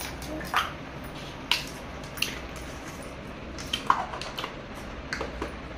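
Small plastic toy kitchen pieces (cups, bowls, pans) clicking and clacking as they are handled and set down on a hard floor, a handful of separate light taps.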